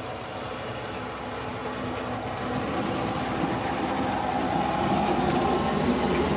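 A motor vehicle approaching, its engine growing steadily louder.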